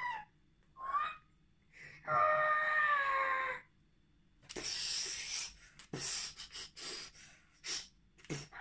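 A child voicing creature noises for a toy dinosaur fight: two short squeals, then a long screech that falls in pitch, followed by a string of short, breathy hisses.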